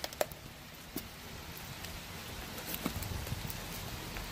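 Blue Bay Shepherd chewing a whole raw fish, with a few short sharp crunches of teeth on fish and bone scattered through, over the steady hiss of falling rain.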